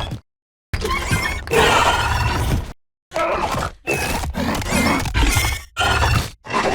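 Designed Baryonyx dinosaur vocal sound effects: a string of growling, roaring calls, each a second or two long, whose pitch bends up and down. They are edited back to back with short dead-silent gaps between them.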